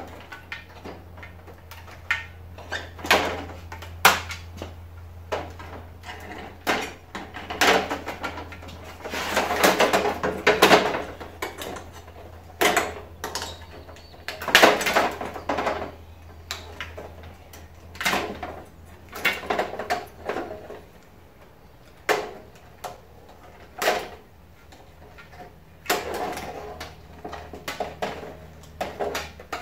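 Wiring and circuit boards being pulled and cut off a CRT television's picture tube: irregular clicks, snaps and rattles of wire and plastic chassis, with longer scraping, rustling passages about ten and fifteen seconds in. A steady low hum runs underneath.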